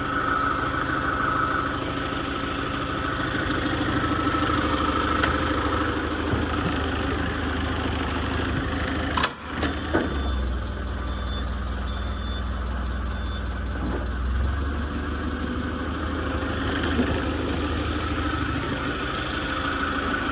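Forklift engine idling steadily. About nine seconds in there is a single knock, then the engine runs heavier for a few seconds while a backup alarm gives a series of short beeps.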